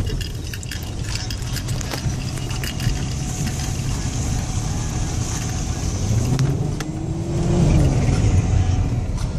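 Audi A6 2.5 TDI quattro's turbocharged V6 diesel engine running under load, its note rising about six seconds in and dropping away near eight seconds, with scattered sharp ticks throughout.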